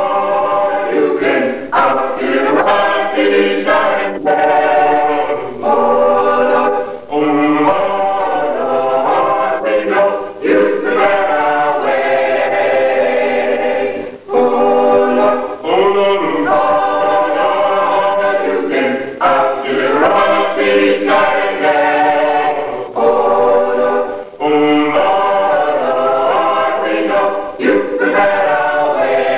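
Small mixed gospel choir of men and women singing a cappella in harmony, long held chords broken by short pauses between phrases.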